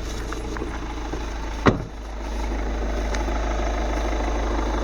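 Vehicle engine idling steadily, with one sharp click about a third of the way in, after which the idle sounds a little louder.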